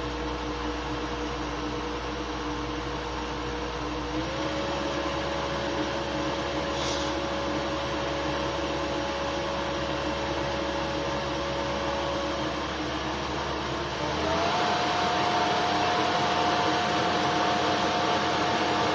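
VFD-driven 2.2 kW AC motor spindle running steadily, its tone stepping up in pitch twice, about four seconds in and again about fourteen seconds in, as the drive frequency is raised. It gets louder after the second step.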